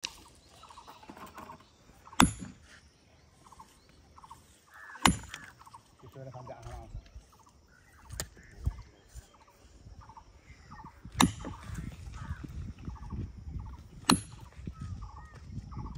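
Heavy hammer striking steel wedges driven into a stone slab to split it: sharp metallic clanks with a high ring, about every three seconds, with two softer knocks midway. Faint bird calls sound between the blows.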